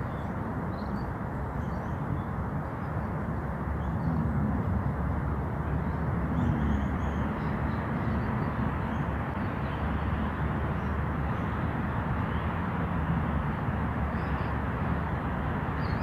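Outdoor park ambience: a steady low rumble and hiss, with a few faint bird chirps high above it.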